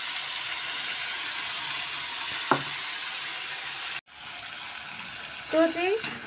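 Chopped tomatoes sizzling in hot oil in a steel kadhai, with a single spoon clink about two and a half seconds in. After a cut about four seconds in, the sizzle goes on more quietly, with a short squeak near the end.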